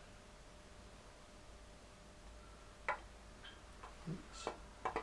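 A handful of light metallic clicks and one duller knock, starting about three seconds in, as an aluminium outer crankcase half of a Triumph Trident T150V engine is slid into place over its locating dowels and shafts.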